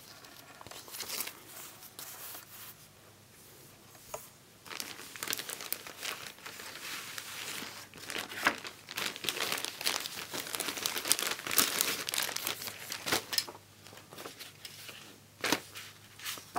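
Paper leaflets and plastic wrapping being handled, rustling and crinkling in irregular crackles, quieter for the first four seconds or so and busier after that.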